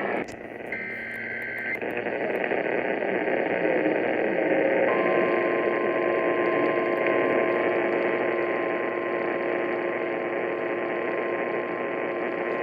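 Weather radio static with a brief data burst of an alert header near the start. From about five seconds in, a steady NOAA Weather Radio warning alarm tone is heard over the hiss, the signal that a warning message is about to be read.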